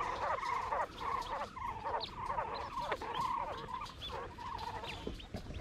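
A cage full of quail calling, with many short, quick chirping notes overlapping in a busy chorus.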